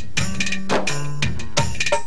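Music with a percussion beat of sharp drum strikes over held low bass notes.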